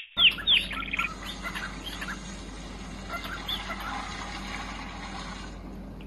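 Two quick descending whistle tones and a short rapid trill at the start, then soft, scattered short chirps from a cockatiel, with faint room hum underneath.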